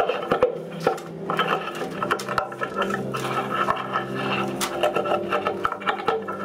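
Strings of the 'Hairy Banjo', an instrument played on a performer's hair, plucked and rubbed by hand: irregular plucks, clicks and scrapes over sustained ringing tones.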